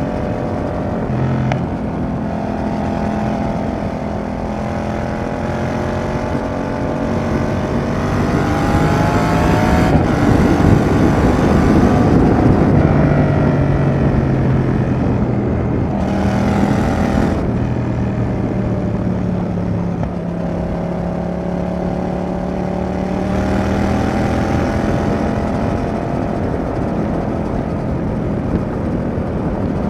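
Yamaha XSR700's 689 cc CP2 parallel-twin running through a Roadsitalia Double Fire aftermarket exhaust while riding, its pitch rising and falling with the throttle. It is loudest on a pull about a third of the way through.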